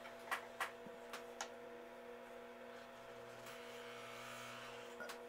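Faint steady electrical hum from the powered toy train layout while the train stands stalled on the track, with a few light clicks in the first second and a half.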